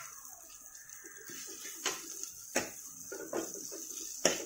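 Steel ladle clinking against an earthenware cooking pot while stirring chopped onions and chillies: three sharp knocks, the loudest near the end.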